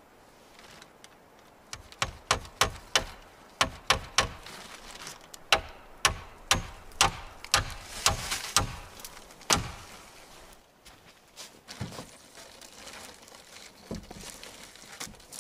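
A series of sharp, irregular knocks, about two a second for several seconds, made while working at the wooden edge of a tarp-covered log roof, with a brief rustle of the plastic tarp about eight seconds in, then only a few scattered faint taps.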